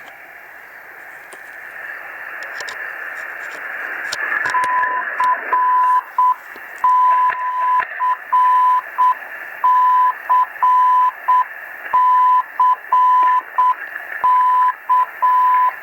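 Pocket shortwave radio receiver playing hiss and static, then, from about four and a half seconds in, a Morse code telegraphy signal: one steady beeping tone keyed on and off in slow dots and dashes over the static.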